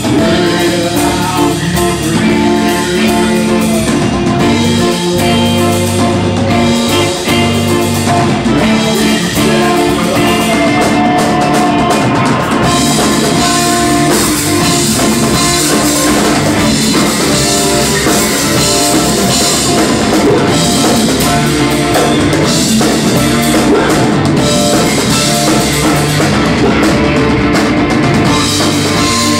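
Live rock band playing: electric guitar, bass guitar and drum kit, loud and continuous.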